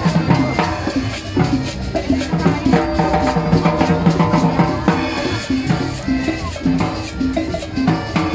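Live Latin dance band playing at a steady beat, with timbales and conga drums over walking notes from an upright bass.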